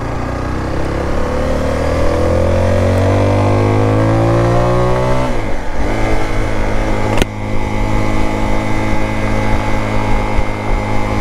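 Zontes T350X motorcycle's single-cylinder engine under hard acceleration, its pitch climbing steadily for about five seconds, then falling abruptly at an upshift and settling into a steady drone. A single sharp click about seven seconds in.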